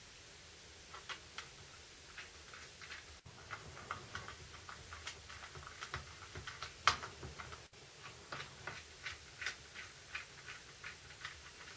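Irregular light clicks and taps of small plastic and metal drill parts being handled and fitted together, with one sharper click about seven seconds in.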